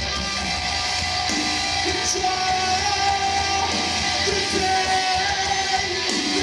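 Live rock band playing loud: electric guitar and drums, with a vocalist singing over them.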